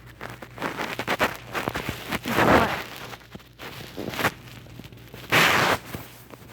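A dog licking close to the microphone: a string of wet crackly clicks, with two louder breathy bursts, about two and a half seconds in and again about five and a half seconds in.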